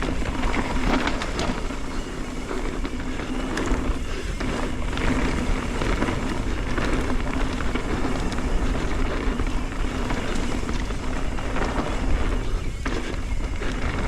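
Mountain bike rolling along a dirt trail: tyres on dirt with frequent short rattles and knocks from the chain and bike over bumps, under steady wind rumble on the microphone.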